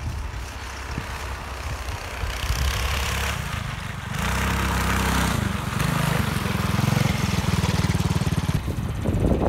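Predator 212cc single-cylinder engine on a homemade tracked snowbike running under throttle. It grows louder about four seconds in as the bike comes close and passes by.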